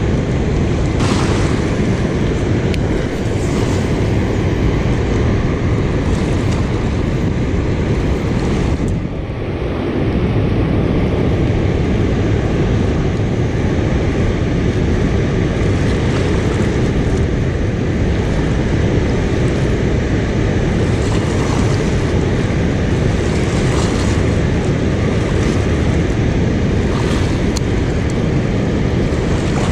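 Steady rush of water pouring through a dam's open spillway gates, with wind buffeting the microphone. The noise dips briefly about nine seconds in.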